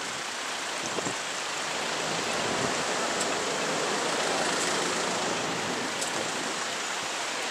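Steady rush of water: raw sewage gushing out of an overflowing drain.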